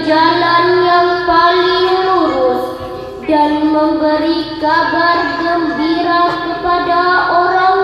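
A girl reciting the Qur'an in the melodic tilawah style, holding long ornamented notes that slide between pitches, with a short break for breath about three seconds in.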